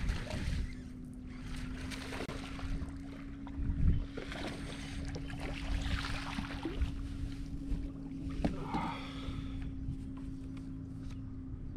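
Bass boat's electric trolling motor humming steadily over wind on the microphone, with a low thump about four seconds in and water splashing around six seconds in as a hooked largemouth bass is fought to the boat.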